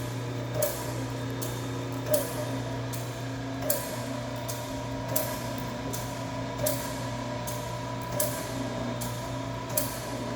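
Small dumpling-making machine running: a steady hum with a sharp knock about every one and a half seconds as it cycles, and short hissing bursts in between.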